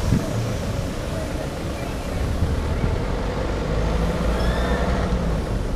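Steady low rumble of a car driving slowly along a dirt street, engine and tyre noise picked up by a camera mounted on the car's outside.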